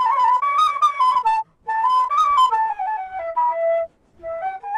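Background music: a solo flute plays a melody in three short phrases with brief pauses between them.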